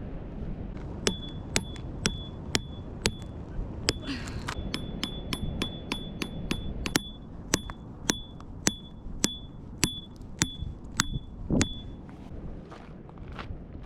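A series of sharp metallic clinks, about two a second and each with the same short ring, over a steady low rumble of wind.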